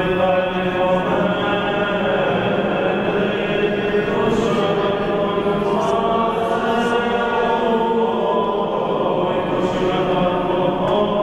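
Many voices chanting the prayers of a Byzantine-rite memorial service (panakhyda) together, in a steady, unaccompanied liturgical chant that moves slowly from note to note.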